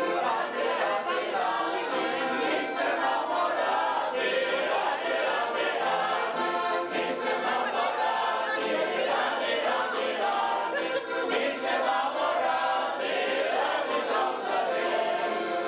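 Several people singing together in chorus.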